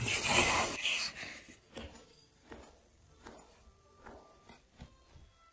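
Bun dough being rolled into a log by hand on a floured wooden board, then a cleaver chopping it into pieces, with a string of light knocks as the blade meets the board, about two a second.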